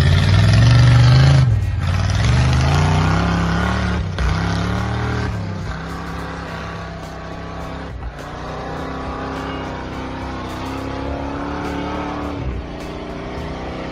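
Lifted square-body Chevrolet pickup's engine revving hard as it climbs a snow-covered trail, pitch rising and falling several times with a few brief breaks in the throttle. It grows fainter as the truck pulls away.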